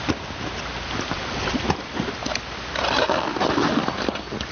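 Swimming-pool water sloshing and splashing around people wading in it, with a few short knocks.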